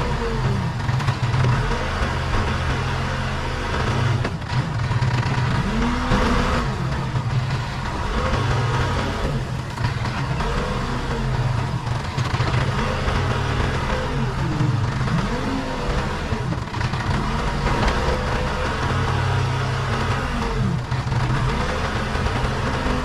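Case 580 Super K backhoe loader's diesel engine running steadily under work, with a whine that rises and falls every few seconds as the machine works.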